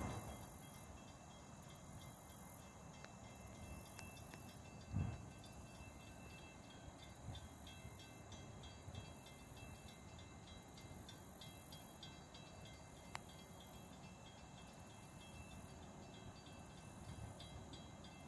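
Faint outdoor ambience: insects trilling in high-pitched pulses over a low, steady rumble, with a soft thump about five seconds in.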